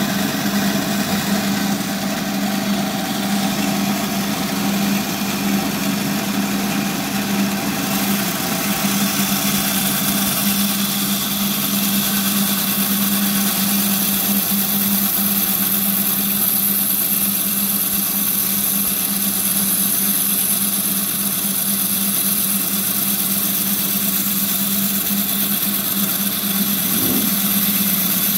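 Gryphon C-40 diamond band saw running steadily with a constant low hum, its diamond wire blade cutting through an acan coral's stony skeleton. A high hiss grows stronger from about ten seconds in.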